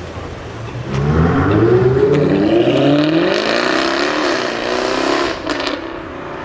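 A sports car accelerating hard: its engine note starts about a second in and climbs steeply in pitch, wavers, then drops away after about five seconds, with a few sharp cracks as it fades.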